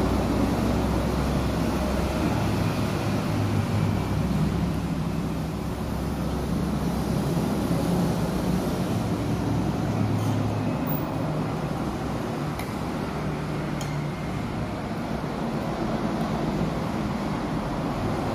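Steady low hum of road traffic, with engine notes shifting pitch every few seconds. A few faint clicks, typical of a spoon and fork on a plate.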